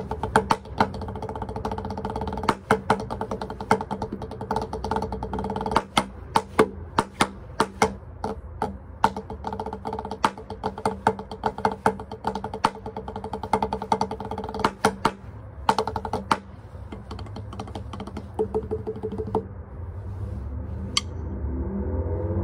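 Drumsticks played fast on a rubber drum practice pad: dense freestyle patterns of sharp taps and accents, thinning to a few scattered hits near the end.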